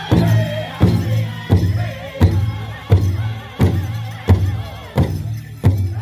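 Powwow drum group singing a chicken dance song over a big drum struck in a steady beat, a little under one and a half strikes a second.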